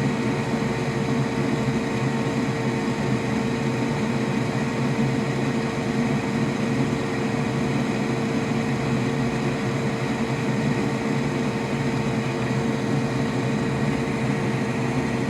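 Steady whirring hum of a bench fan or air unit, with a constant mid-pitched tone over a low drone.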